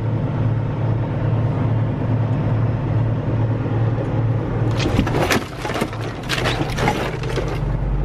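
Semi-truck's diesel engine running with a steady low hum inside the cab as it rolls slowly. About five seconds in, a burst of clattering knocks and bangs as an overhead cab cabinet pops open and a portable CB radio falls out.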